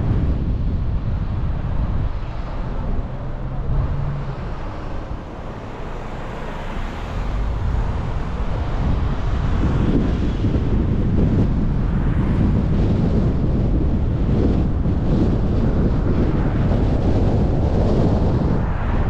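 Wind noise on an outside-mounted camera's microphone, mixed with tyre and road noise from a car driving along town streets. It dips for a few seconds near the middle, then picks up again.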